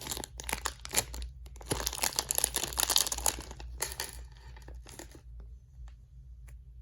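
Squishy packaging being handled and opened, crinkling and tearing. It is dense for about four seconds, then a few scattered crackles die away about five seconds in.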